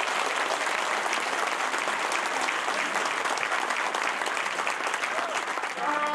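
Audience applauding steadily. Just before the end, a children's wind band of flutes, saxophones and trumpet starts to play.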